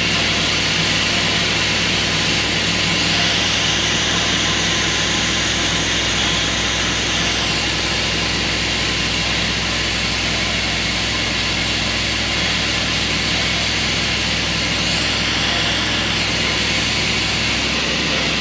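Water pump running steadily as it fills a steam locomotive's water tank, which is nearly full.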